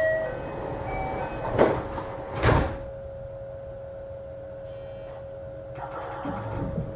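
Doors of a JR West 321 series commuter car sliding shut, with a few sharp knocks in the first three seconds, over a steady hum from the car.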